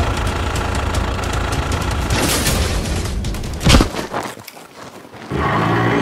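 A steady low rumble, broken by a single loud boom about three and a half seconds in, after which the sound drops away for about a second and a half before the rumble comes back.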